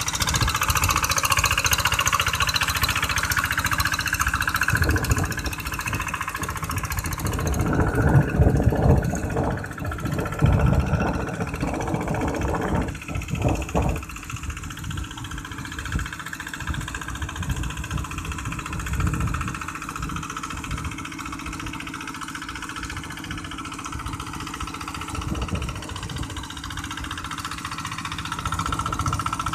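Two-wheel hand tractor's single-cylinder diesel engine running steadily under load as it drives its cage wheels through a flooded rice paddy. It is louder for a stretch in the middle, then quieter.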